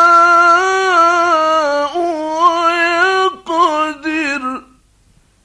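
A solo male voice chanting Quran recitation in the melodic mujawwad style. It holds one long note with slow, ornamented turns in pitch, breaks off about three seconds in, and then sings the words "wa yaqdir" in short melismatic phrases before stopping abruptly about four and a half seconds in.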